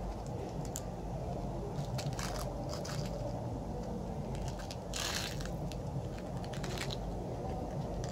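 Small cardboard box of grape Nerds candy being handled: light crackles as the thin card flaps flex. About five seconds in comes a short rattling rush as the tiny hard candies pour out into a palm. A steady low background hum runs underneath.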